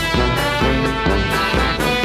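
Background music: an upbeat jazz tune with brass instruments over a steady beat of about two a second.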